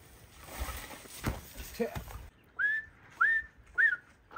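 A spell of rustling noise with a single knock about a second in. About halfway through come three short whistles, each sliding up and then holding its pitch, with a fourth starting at the very end.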